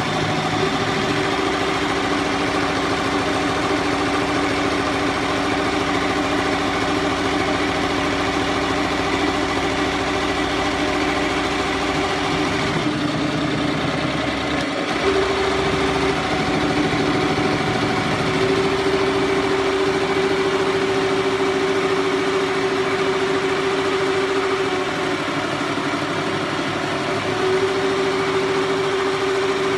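Single-head He Feng embroidery machine running, its needle stitching at a fast, even rate over a steady motor hum. The motor's tone shifts pitch several times from about halfway on.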